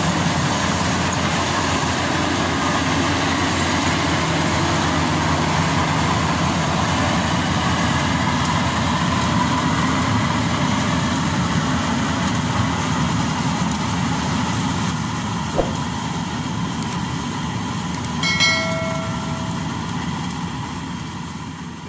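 Maxxi Bimo 102 rice combine harvester running steadily while harvesting, its engine and threshing machinery making a constant mechanical noise. The sound fades out near the end.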